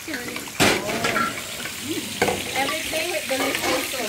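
Spice paste sizzling in hot oil in a frying pan while it is stirred and scraped with a wooden spatula. The sizzle jumps louder about half a second in.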